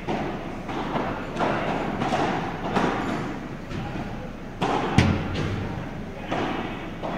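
Padel rally: rackets striking the ball and the ball bouncing off the court and glass walls, a string of sharp hits with a short echo after each. One louder, deeper thud comes about five seconds in.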